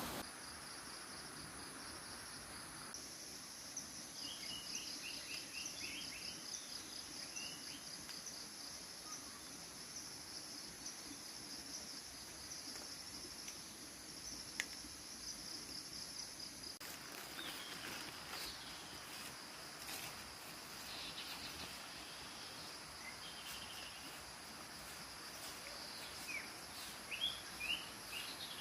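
Forest ambience: a steady, high insect drone with a fast pulsing trill, and short bird chirps scattered through it, a few of them louder near the end.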